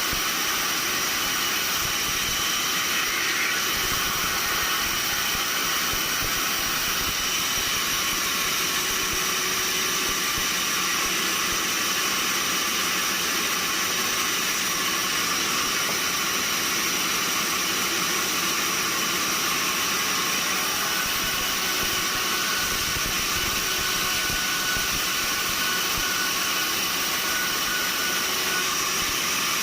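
Sawmill machinery running steadily: an even mechanical hiss with a high, unchanging whine.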